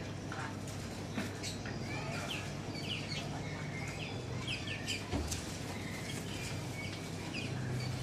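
Caged songbirds chirping: short, quick chirps scattered throughout, over a steady low hum, with a single knock about five seconds in.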